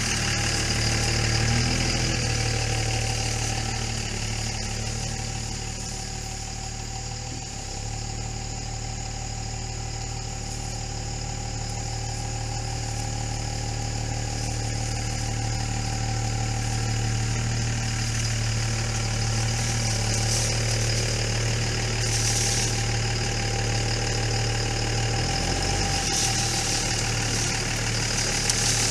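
A pickup truck's engine running steadily at low revs close by while the truck moves slowly.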